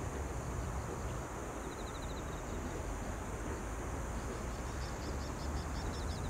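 Outdoor rural ambience. Wind rumbles on the microphone, a thin high insect drone holds steady, and short chirps repeat several times a second, with a brief fast ticking trill about two seconds in.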